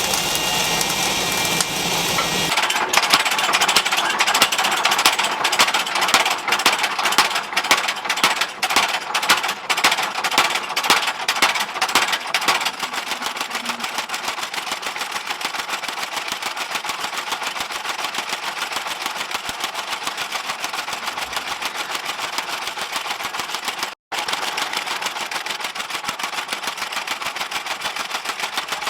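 Rapid, repeated machine-like hammering, several strikes a second. The strikes come unevenly at first, then settle into a steady fast rattle.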